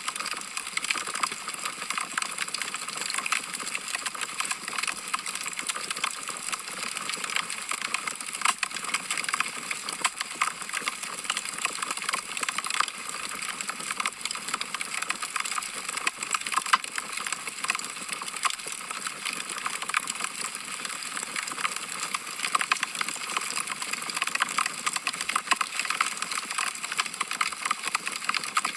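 Wood fire in a fireplace crackling: a dense, steady patter of small pops and snaps from burning logs.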